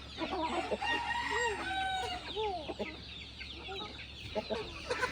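Several chickens clucking and calling over one another in short rising-and-falling notes, with one longer drawn-out call about a second in.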